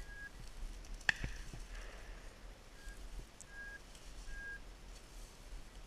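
Walking through dry grass and weeds, with rustling and handling noise on a body-worn camera. A single sharp click comes about a second in, and a few brief, steady, high-pitched tones sound at irregular intervals.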